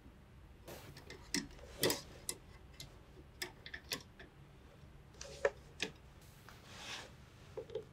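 Faint, irregular light clicks and taps of hard brake lines and their tube-nut fittings being handled and fitted into the ports of a master cylinder, with a brief soft rustle near the end.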